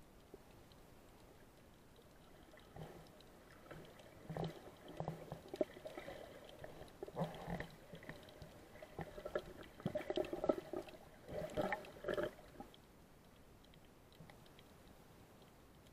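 Muffled water gurgling and bubbling picked up underwater, in irregular bursts that come and go for most of the middle of the clip over a faint steady hiss.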